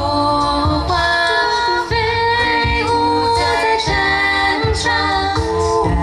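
An a cappella vocal group singing a military song in harmony, a female voice prominent over a sung bass line that moves in steady steps.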